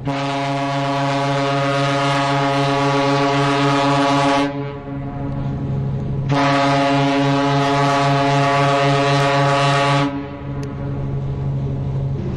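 A cruise ship's horn sounding two long, deep blasts of about four seconds each. A weaker tone lingers on in the gap between them.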